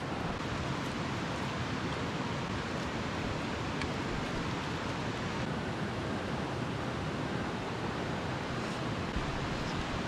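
Steady, even rushing background noise of the outdoors, with no distinct events in it.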